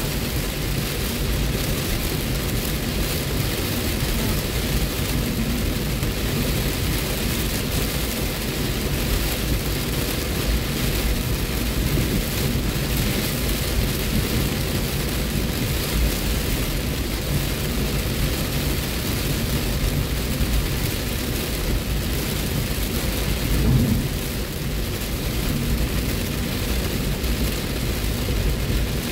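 Heavy rain beating steadily on a car's roof and windshield, heard from inside the moving car, over a low rumble of road and engine noise.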